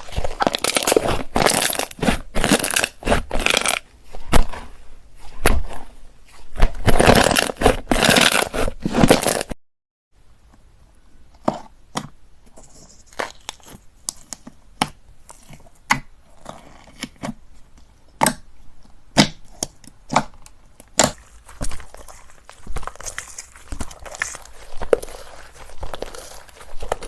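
Slime being squeezed, stretched and pressed by hand, crackling and popping. For about nine seconds the crackle is dense and loud. After a brief silent break it turns into sparser, quieter pops and clicks.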